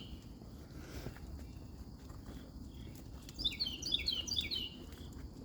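A songbird singing one short phrase of quick, falling chirps about three and a half seconds in, over low, steady background noise.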